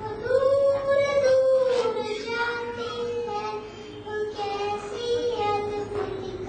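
A young girl singing solo, holding long, gently sliding notes.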